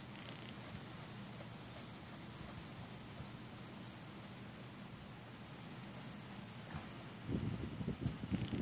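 Crickets chirping in an even rhythm, about two short high chirps a second, over a steady high hiss of insects. Irregular low muffled thuds come in near the end.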